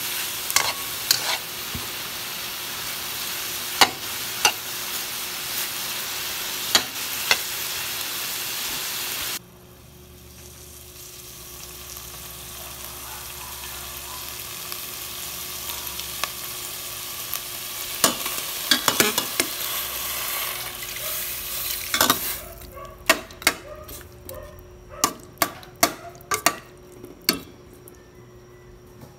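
Chicken pieces, onion and ginger sizzling as they sauté in a pan, with a metal spatula clicking and scraping against the pan as they are stirred. The sizzle cuts off abruptly about nine seconds in, comes back quieter and slowly grows, and near the end gives way to scattered clicks of a utensil against the pot.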